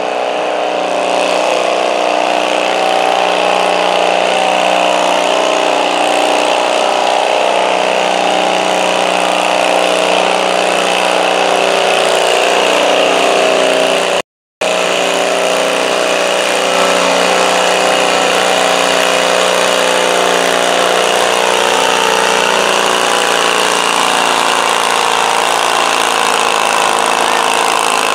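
Stock altered garden tractor engine running steadily at high revs under load as it pulls a 1,000 lb stoneboat. The sound cuts out for a moment about halfway through.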